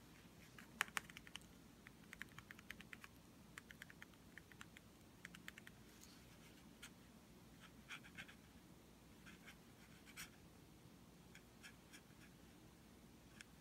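Small kitten scrabbling on fleece blankets and a braided fleece toy: faint, irregular scratches and clicks of its claws in short clusters, over near silence.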